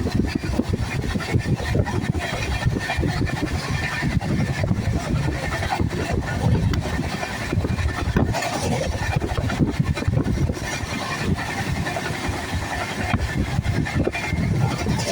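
Train running on the rails: a steady low rumble with rapid rattling and clicking.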